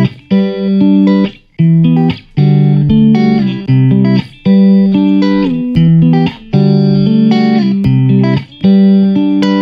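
Background instrumental music, with held chords and notes of about a second each separated by short breaks.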